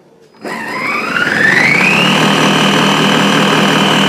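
Moulinex Companion kitchen robot's motor starting up at speed 12, spinning the mini bowl's chopping blade through parsley. It is a whine that rises in pitch over about a second and a half, then holds steady.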